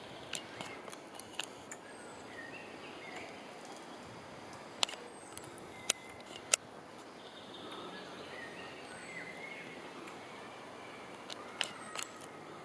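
Forest ambience with small birds chirping here and there, and a few sharp clicks, three of them louder close together about halfway through.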